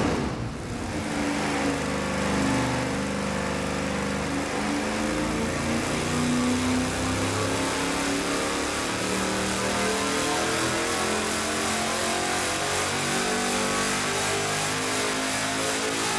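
LS3 6.2-litre V8 crate engine making a dyno pull on 87-octane pump gas, its revs climbing steadily from about 3,000 to about 6,400 rpm.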